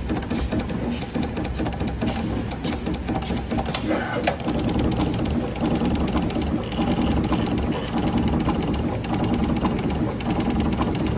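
Automatic multi-nozzle PVC label dripping machine running, a rapid steady clicking over a low mechanical hum as its nozzles move over the mould and drip liquid PVC.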